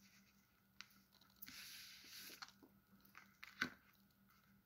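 Faint handling of tarot cards: a soft sliding rustle about a second and a half in, with a few small clicks and taps before and after.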